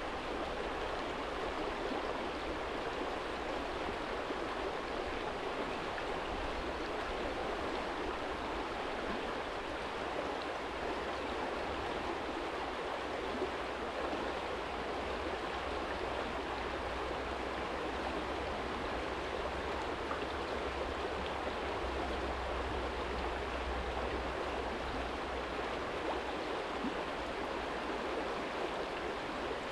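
Small stream flowing steadily over a stony bed, an even rush of water with a faint low rumble underneath.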